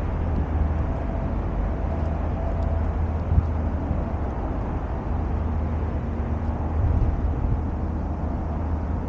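Steady low outdoor rumble with a hiss above it and no distinct event.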